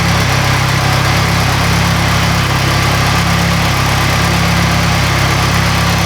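Honda S2000's four-cylinder engine running steadily at idle through a newly fitted titanium Amuse R1000 exhaust.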